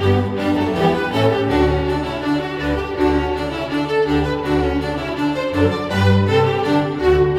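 Background instrumental music: slow, held string notes over a bass line that steps from note to note.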